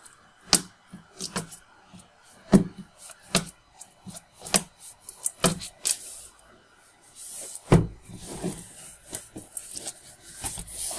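Black plastic courier wrapping being slit with a knife and pulled apart around a parcel: irregular crinkles and sharp crackles of the plastic, with a longer rustle a little over halfway through.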